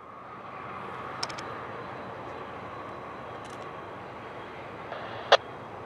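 Steady distant drone of a GE ES44DC diesel locomotive hauling a train of passenger cars, rising over the first second and then holding even. A few faint clicks and one sharp click come near the end.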